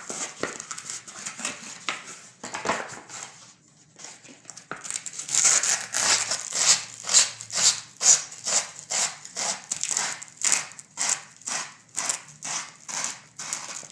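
Sandpaper rubbed on the end of an arrow shaft to clean it for a new nock: a few irregular scratches at first, then from about five seconds in a quick, even run of rasping back-and-forth strokes, two to three a second.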